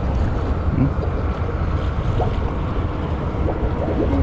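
Wind buffeting the microphone: a steady, choppy low rumble with a hiss of open air over it.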